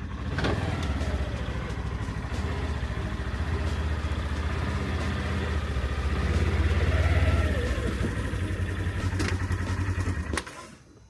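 A compact tractor's diesel engine runs with a deep, pulsing rumble, growing louder about six seconds in. Near the end the sound cuts off abruptly.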